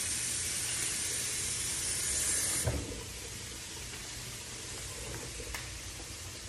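Shrimp sizzling in butter in a frying pan, a steady hiss that drops off sharply with a knock about two and a half seconds in, then carries on more faintly. The cook feels the pan is not quite hot enough.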